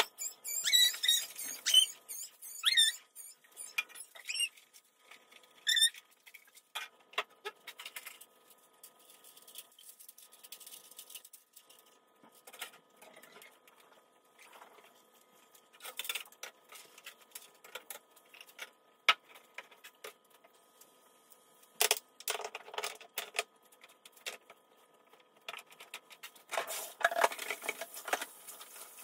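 Squeaking of a cloth rubbed hard over kitchen surfaces, a run of short high squeaks in the first few seconds. Then scattered clicks and knocks of items being handled, with a louder spell of clatter and rustling near the end.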